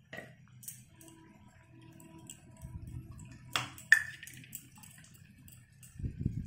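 A small steel cup clinking against a steel kadai, a few light clinks and one sharp metallic clink with a short ring a little under four seconds in. Near the end a dull knock as the cup is set down.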